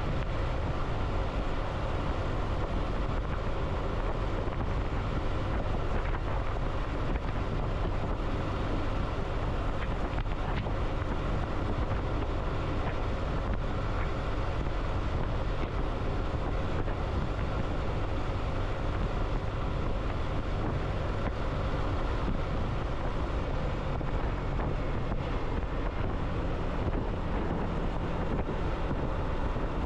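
Steady wind rush on the microphone over a vehicle's engine and road noise, running at an even pace with no change.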